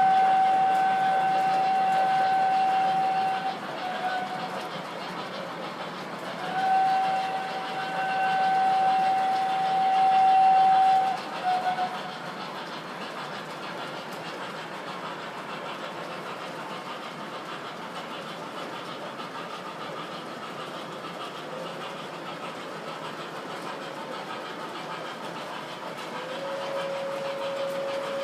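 MTH model train whistle sounds from the locomotives' built-in sound systems. Two long blasts at one pitch, each ending in a short toot, sound over the steady running noise of the trains on the track. A lower-pitched whistle starts near the end.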